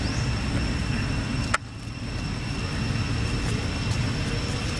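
Steady outdoor background rumble with two constant high-pitched tones over it, broken by a single sharp click about a second and a half in.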